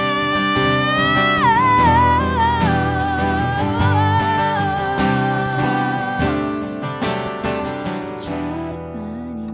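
A woman singing a long held high note that bends down through a short run and settles on a lower held note, ending about six seconds in, over two acoustic guitars strumming. The guitars carry on alone and get quieter toward the end.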